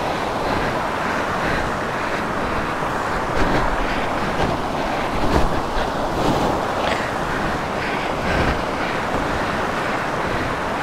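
Steady rushing wind noise on an action camera's microphone while a KTM 390 Adventure is ridden off-road, its engine running underneath, with a couple of brief louder bumps.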